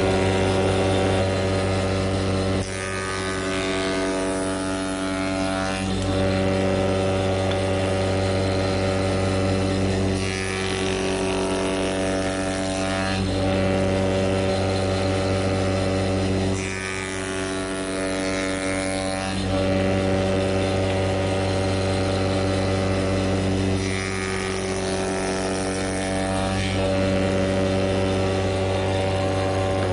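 Spindle moulder (wood shaper) switched on at the start and running with a steady hum, its pitch unchanging. Every few seconds a rougher cutting noise joins in as small newel-cap blanks are pushed past the cutter block with a push block.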